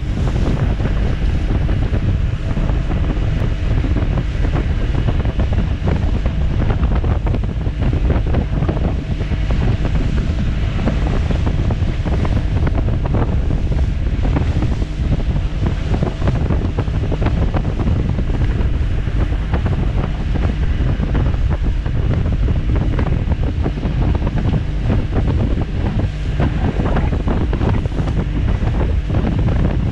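Heavy wind buffeting on the microphone over the steady drone of a Mariner outboard motor running at cruising speed, with the rush of water from the hull and wake.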